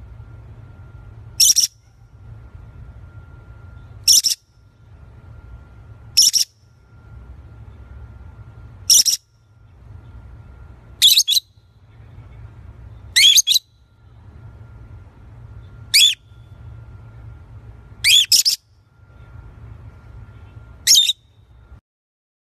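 Small parrot squawking: short, loud, high-pitched calls about every two to three seconds, one pair coming close together, over a faint steady hum.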